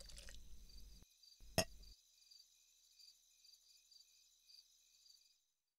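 Faint crickets chirping in a steady pulse, about twice a second. A single sharp knock sounds about one and a half seconds in.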